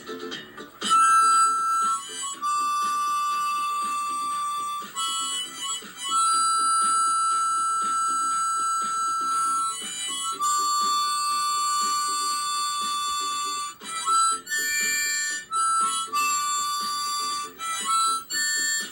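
Harmonica playing an instrumental break between verses of a slow song: long held notes stepping between a few pitches, over a quieter steady rhythmic accompaniment.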